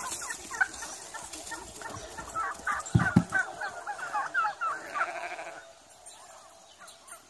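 Turkeys calling in rapid gobbling chatter, with a heavy thump about three seconds in; the calls stop at about five and a half seconds.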